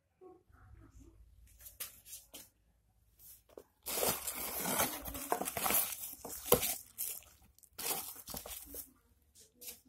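Cardboard shipping box being torn open by hand: tape and flaps ripping loudly for about three seconds, starting about four seconds in, after quieter rustling. A shorter burst of bubble wrap crinkling and rustling follows near the end.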